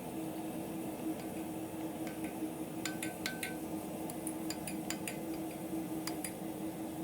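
A steady low hum with a few faint metallic clinks of tools on small iron stock, about halfway through and again near the end; no full hammer blows.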